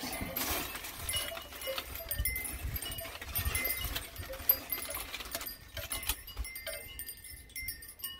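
Aluminium foil crinkling and rustling in irregular crackles as it is pulled open around a smoked pork belly and the meat is lifted out of it.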